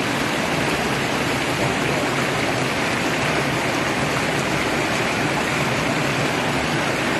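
Steady rush of running water in a concrete drain.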